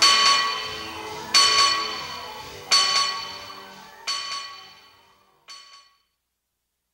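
Closing music of bell-like chimes: five slow strokes about a second and a half apart, each ringing out and dying away over soft low notes. The strokes grow quieter, and the last is faint, about five and a half seconds in.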